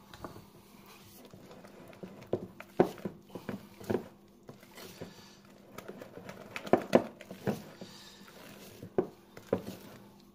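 Rubber spatula knocking and scraping against a mixing bowl while melted butter is folded into a waffle batter: irregular soft knocks, a few at a time with short pauses between.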